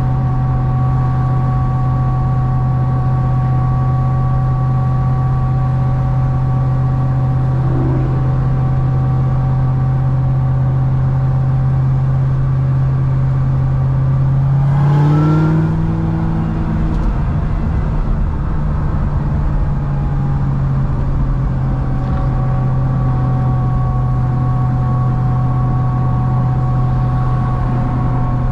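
Supercharged 6.2-litre V8 of a C6 Corvette ZR1 running steadily at cruise. About halfway through, a brief burst of throttle makes the engine note rise, then it falls away and settles back into a steady drone.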